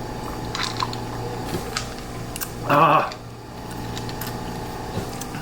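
A person sipping and swallowing soda, with a few small clicks and gulps in the first two seconds, then a short vocal sound about halfway through, over a steady low hum.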